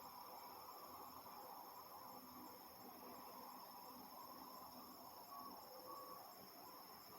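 Faint, steady high-pitched chorus of crickets, unbroken and unchanging, with a soft hum of distant background noise beneath it.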